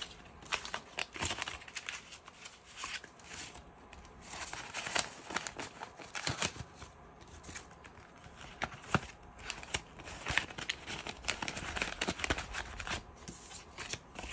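Paper banknotes and plastic cash-binder envelopes rustling and crinkling as they are handled, in short irregular crackles.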